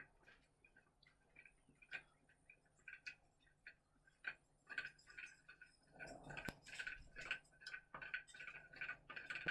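Light, irregular clicking and ticking, sparse at first and busier from about six seconds in, as a measuring line is fed down the well.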